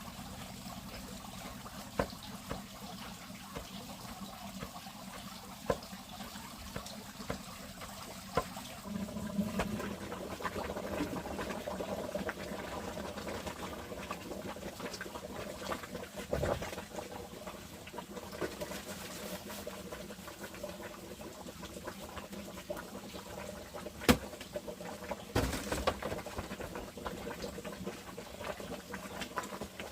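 Water trickling, with scattered clicks and knocks; a sharper knock about 24 seconds in.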